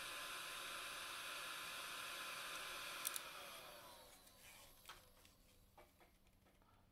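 Heat gun running with a steady rush of air and fan whine, then switched off with a click about three seconds in; the fan winds down with a falling whine and fades out. A few faint clicks follow.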